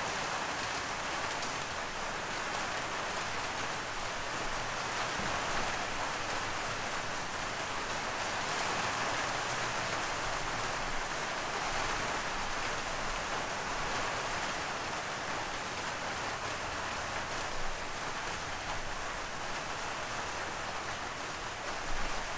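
Steady rain falling, an even hiss heard from inside a garage.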